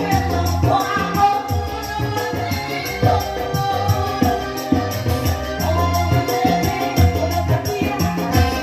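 Tarling music played live through a PA sound system: a held, wavering melody over a repeating bass pulse and quick rattling percussion.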